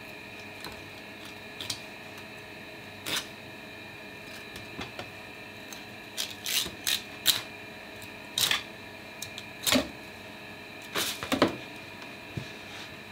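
Kitchen knife clicking and scraping against a plastic cutting board as a bonito is filleted: scattered short, sharp knocks, several in quick succession in the middle, over a faint steady hum.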